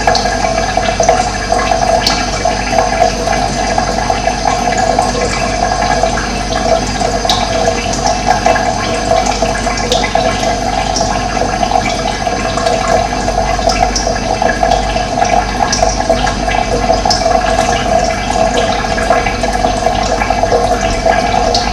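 Running water flowing steadily, an even, continuous rushing.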